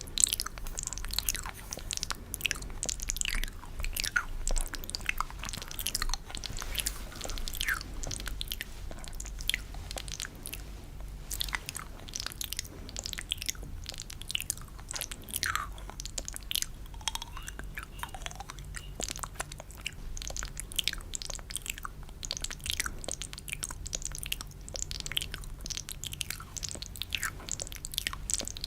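ASMR spit-painting mouth sounds close to the microphone: a dense run of quick wet clicks, pops and smacks, some of them falling in pitch.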